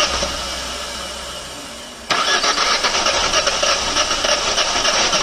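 Starter motor cranking a Hyundai Grand i10's petrol engine, which does not catch. The cranking fades over the first two seconds, stops briefly, then starts again abruptly. This is cranking to prime oil through a newly fitted oil pump and fill the injector rail before the engine will fire.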